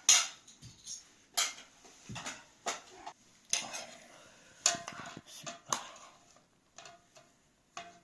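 Metal utensil clinking and scraping against a cooking pan in a string of sharp strikes about every half-second to second, some leaving a brief metallic ring.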